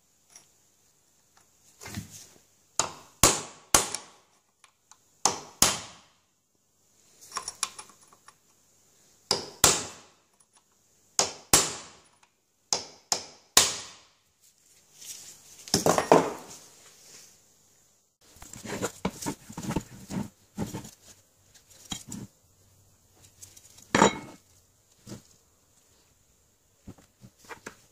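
A hammer striking a steel pin punch, driving solid steel rivets out of a screw jack's base plate: sharp metallic blows, often in pairs, a second or two apart. In the second half come lighter clinks and rattles of loose metal jack parts being handled.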